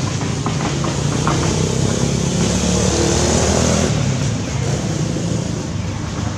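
A steady engine drone with a low hum, swelling a little around the middle and easing off again.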